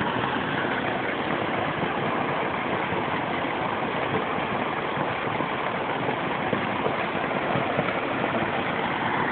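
Garden pond waterfall splashing steadily into the pond.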